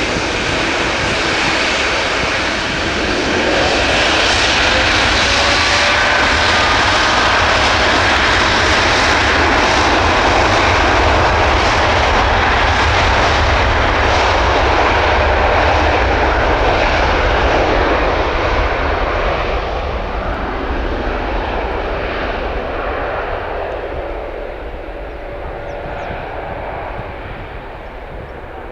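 Boeing 787-9 jet engines at high power, a loud rush with faint whines, loudest for the first two-thirds and then fading as the airliner moves away, its sound growing duller.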